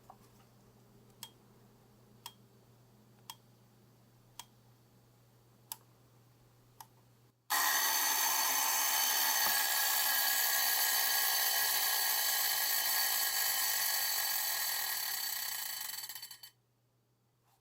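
Mechanical alarm of a vintage Jaeger-LeCoultre alarm clock going off: a loud, rapid buzzing ring that starts suddenly about seven seconds in, holds for about nine seconds, then weakens and stops. Before it, single sharp clicks come about once a second.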